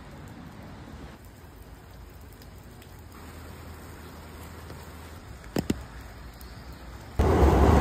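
Steady rain on a wet street, a soft even hiss, with two brief sharp knocks a little past the middle. Near the end a much louder rushing noise cuts in suddenly, heavy in the low end.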